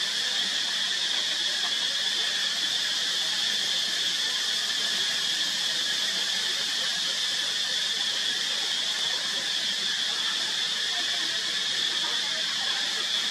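Steady, high-pitched insect chorus: an unbroken drone with no rise or fall.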